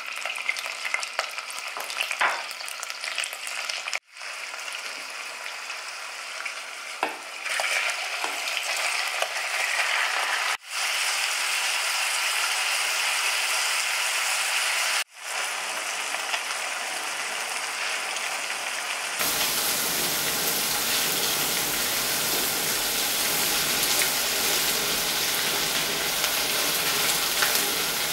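Bacon and chunks of beef shank sizzling as they fry in butter and oil in a pot, with some stirring. The sizzle cuts out and resumes several times, and is louder and fuller about two-thirds of the way through.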